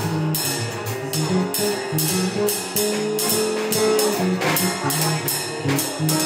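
Live jazz from a small band: an electric bass playing a moving bass line, a drummer keeping time with steady cymbal strokes, and a keyboard holding notes above.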